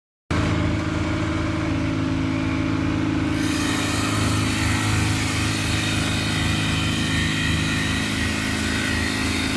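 Woodworking round-bar (dowel-making) machine running: a steady motor hum. About three seconds in, a higher hiss joins it and continues.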